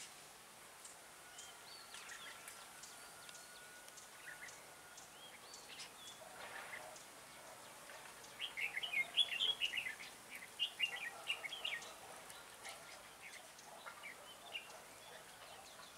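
Red-whiskered bulbuls calling in the tree with short, scattered chirps, then a busy run of quick, bright song phrases about halfway through, the loudest part.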